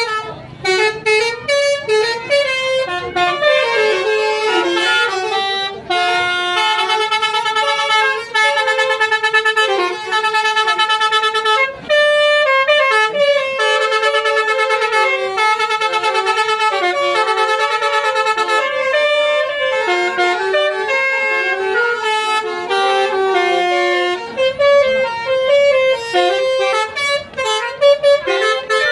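Telolet basuri bus horn playing a melody: a string of stepped horn notes, often several sounding together, with runs of quickly repeated notes and short breaks about six and twelve seconds in.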